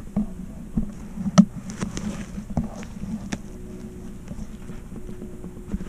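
Handling noise from a gun-mounted camera on a muzzleloader: scattered short clicks and knocks, the sharpest about a second and a half in, over a steady low hum.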